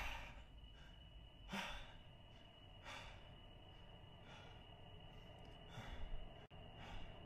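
Faint, slow breaths, one about every second and a half, over a faint steady high whine.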